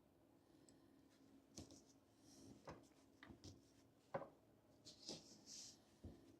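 Faint, scattered clicks, taps and short scrapes from small parts being handled, with the sharpest tap about four seconds in. This is most likely the magic arm's loosening joint being worked while it is glued with JB Weld epoxy.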